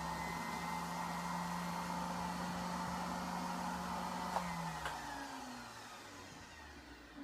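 CNC router spindle running steadily with a dowel drill bit, then switched off with a click about four and a half seconds in and winding down, its whine falling in pitch and fading, as the first set of screw holes is finished.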